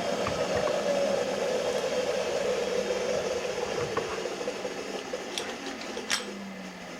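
Bridgeport milling machine's spindle motor coasting down after being switched off, its hum dropping slowly in pitch and fading. A couple of light clicks come near the end.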